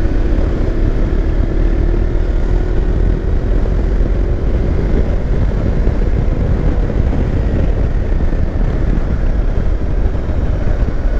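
Motorcycle riding at speed, engine running steadily under heavy wind rumble on the microphone.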